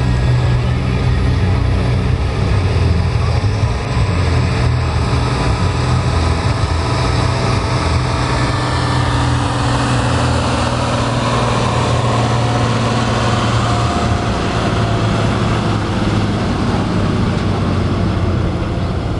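Massey Ferguson 3085 tractor's roughly 100-horsepower six-cylinder diesel engine running hard under full load as it pulls a weight-transfer sled. The engine drone stays steady throughout.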